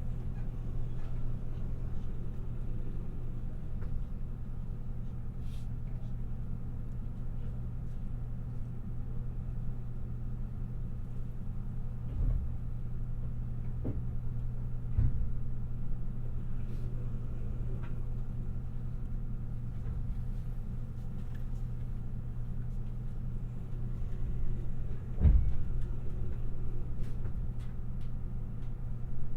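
Steady running noise of a Limited Express Shirasagi electric train at speed, a continuous low rumble and hum from wheels on rail. A few low thumps come about twelve, fifteen and twenty-five seconds in.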